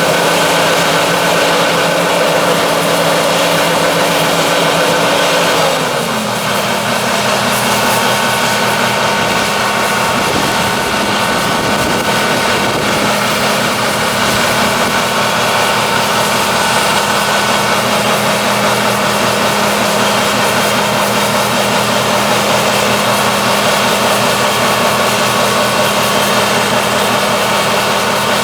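John Deere 9600 combine running steadily, its diesel engine droning; the engine note drops in pitch about six seconds in and holds lower.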